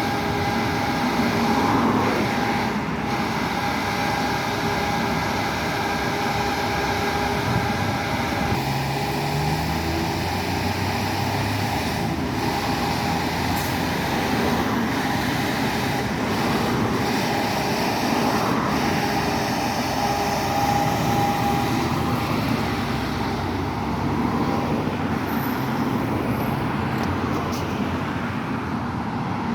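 Volvo B7TL double-decker bus running with its loud 'hoover', a steady whine over the engine; a higher part of the whine stops about nine seconds in.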